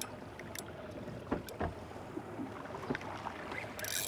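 Small fishing boat's low steady hum, with a few soft knocks. A rushing hiss comes in near the end.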